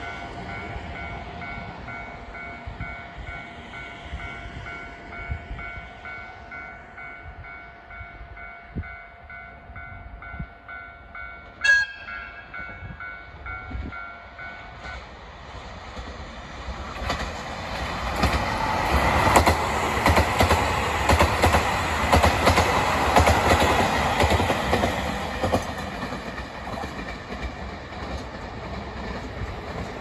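KiHa 283 series diesel express train passing through a station at speed. A short horn blast comes about twelve seconds in, then the diesel engines and wheels on the rails grow loud for several seconds and fade as the train runs past.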